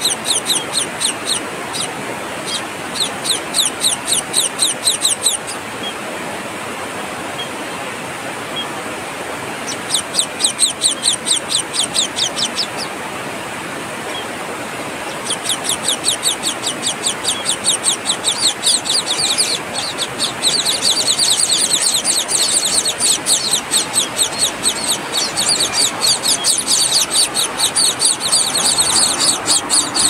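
Scaly-breasted munia nestlings begging to be fed: rapid, repeated high calls, about four a second, over a steady hiss. The calls come in bouts: for the first few seconds, again around ten seconds in, then without a break from about fifteen seconds in as the adult feeds them.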